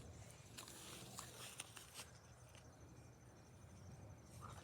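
Near silence, with a few faint ticks in the first two seconds.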